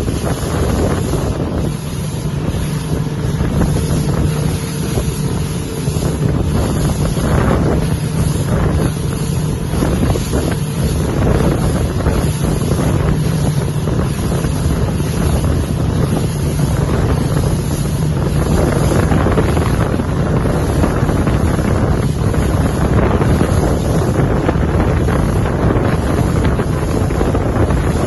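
Salpa Soleil 23 motorboat under way, its engine running with a steady low hum over rushing water, and wind buffeting the microphone.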